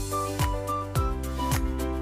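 Background music with a steady beat: a deep kick drum about twice a second under short bright melody notes and held chords.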